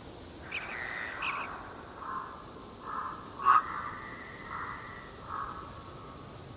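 Bird calls in an autumn forest: a series of short calls, roughly one a second, over a faint steady background, with one louder call about three and a half seconds in.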